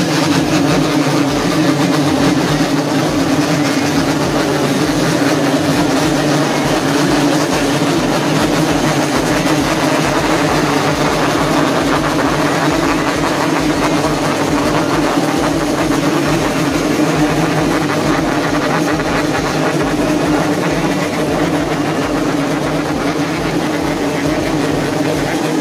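Many Yamaha RX-King two-stroke single-cylinder motorcycles running and being revved at once, merging into a loud, continuous engine sound.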